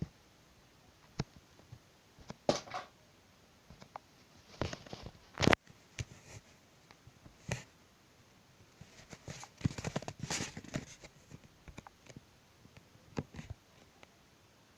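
Irregular knocks, clicks and rustles with quiet gaps between, the sharpest about five and a half seconds in and a busier stretch of rustling around ten seconds.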